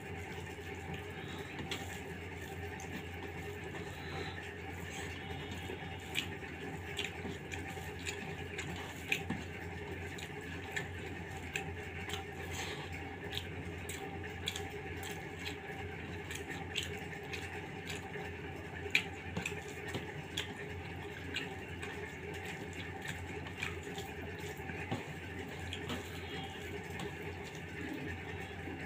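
Close-up eating sounds as khichuri is eaten by hand: wet chewing and many small mouth clicks and smacks, with fingers squishing and mixing the rice on a steel plate. A steady low hum runs underneath.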